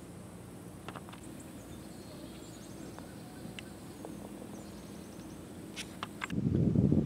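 Quiet open-air background with a few faint ticks, then about six seconds in, wind suddenly buffeting the microphone with a loud, low, gusty rumble.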